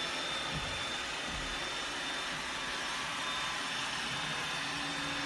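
Roomba robot vacuum running: a steady whir of its suction motor and brushes as it drives across the floor.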